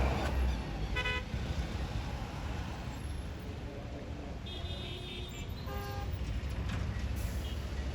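Road traffic noise with vehicle horns honking: a short horn about a second in, a higher-pitched horn held for most of a second a little after the middle, and a lower horn just after it.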